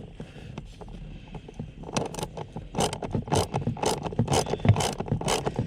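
Hard plastic parts scraping, clicking and knocking as a car's blower motor is handled and worked into its housing under the dash, busier from about two seconds in.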